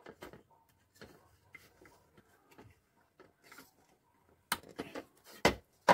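Small plastic clicks and taps as a wire connector is handled and pushed into its socket on a circuit board in a metal case, with a few sharper knocks near the end, the loudest about five and a half seconds in.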